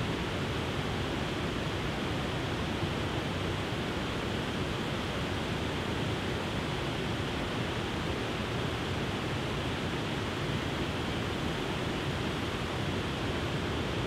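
Broad, tiered waterfall pouring over rock ledges into a pool: a steady, unbroken rush of water.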